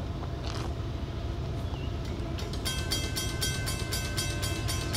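Western Cullen Hayes mechanical grade-crossing bell starting to ring about halfway in, about five strikes a second, over a steady low rumble. The crossing has activated for an approaching train.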